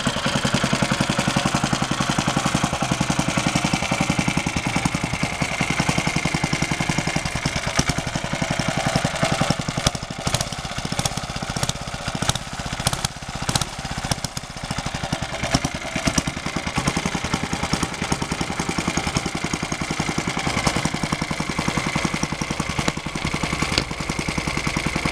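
Small single-cylinder petrol engine ticking over at a slow idle, tuned to run slow and quiet. For several seconds around the middle, while its carburettor is handled, it runs unevenly with dips in loudness, then settles back to a steady tick-over.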